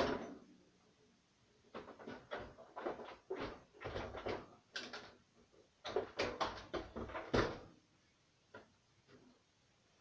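Dishes being loaded into a dishwasher's wire racks: a run of short clinks and knocks as items are set down and nudged into place, stopping about three-quarters of the way through.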